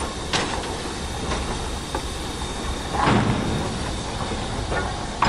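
JNR Class 8620 steam locomotive No. 8630 rolling slowly over the rails. A steady rush runs underneath a handful of separate knocks and clanks, the loudest about three seconds in.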